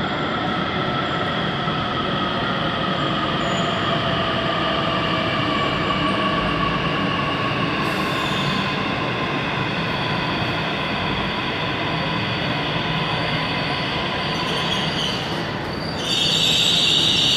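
Navi Mumbai Metro electric train pulling into the platform and slowing to a stop: a steady rolling rumble with a high whine that slowly falls in pitch as it decelerates. A loud high electronic beep starts near the end.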